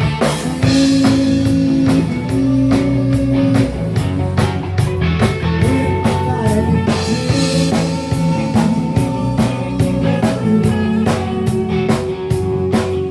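Rock band playing an instrumental passage: a drum kit keeps a steady beat of hits under bass and guitar, with long held notes above.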